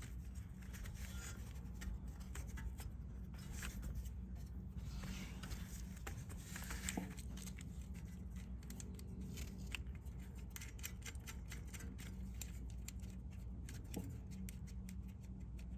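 Faint small clicks and scraping as a small nut is handled and started onto a glow plug's terminal stud in the engine bay, over a steady low hum.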